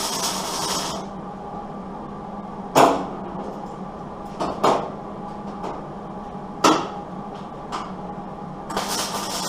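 Tack welding sheet metal: hissing, crackling welding bursts at the start and again near the end, with a few sharp metallic knocks in between, over a steady low hum.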